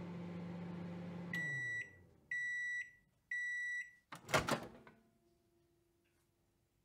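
A microwave oven finishing its cycle. Its low hum winds down, three high beeps follow, and then comes a sharp clatter of the door latch opening, the loudest sound, about four seconds in.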